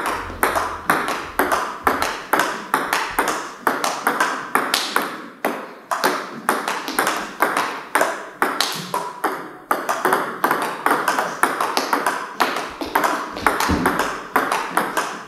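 Table tennis backhand rally: the ping-pong ball clicks off the rubber paddles and bounces on the table in a quick, even rhythm. It breaks off briefly twice partway through.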